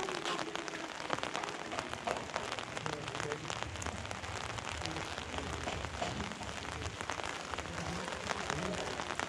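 Light steady rain falling on an umbrella overhead, a dense scatter of small drops ticking on the fabric.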